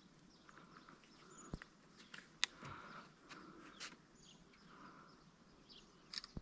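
Quiet outdoor background with a few faint, sharp clicks and ticks scattered through it.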